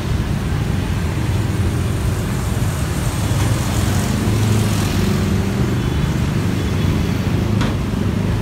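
Steady road-traffic rumble that swells around the middle, with a single sharp click near the end.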